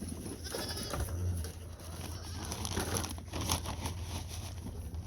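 Barnyard animals calling at feeding time, hungry and expecting to be fed: a short pitched call about a second in, then a few scattered calls over a steady low rumble.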